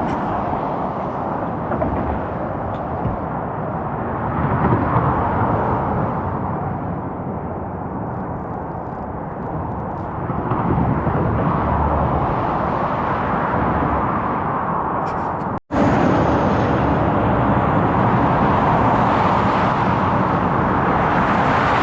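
Steady road traffic noise from passing cars on the highway, slowly swelling and easing, with a sudden break about sixteen seconds in before it carries on.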